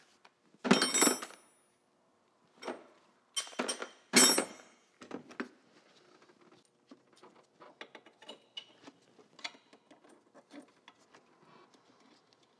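Metal hand tools clanking and rattling against the engine and transmission: a few loud, ringing clinks in the first half, then a run of lighter, irregular clicks.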